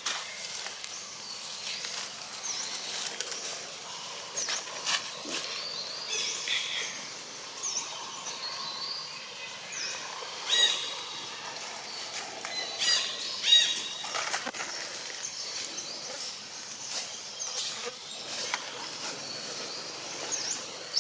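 Outdoor ambience full of short, high-pitched animal chirps and squeaks, some sweeping up or down, with scattered clicks; the loudest squeaks come about ten and thirteen seconds in.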